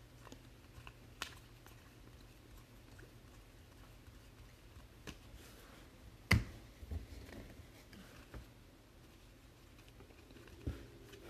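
Glossy chromium baseball trading cards being flipped and slid against each other by hand, with light scattered clicks. A sharp tap about six seconds in, as a stack of cards is set down on the table mat, and another softer knock near the end.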